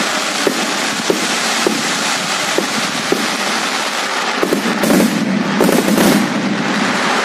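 Aerial fireworks: a dense, continuous crackle of crackling stars with regular pops about twice a second, then a louder cluster of bangs about two-thirds of the way through.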